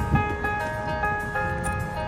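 Music: a melody of clear, held notes that change every half second or so, over a low rumble.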